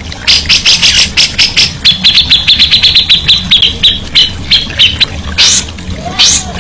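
Songbird singing loudly in rapid series of sharp, high chirps, with a fast, even run of repeated notes from about two seconds in to about five seconds in.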